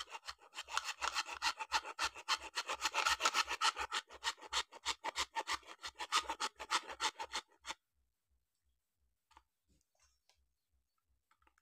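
Small yellow-handled hand saw blade sawing through the hard plastic body of a toy tractor in rapid, even strokes, stopping about three-quarters of the way through.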